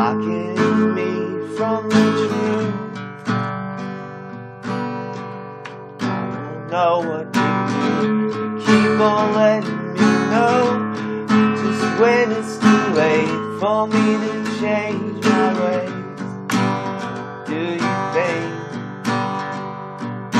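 Acoustic guitar playing an instrumental break: strummed chords on a steady beat, with notes sliding in pitch between them.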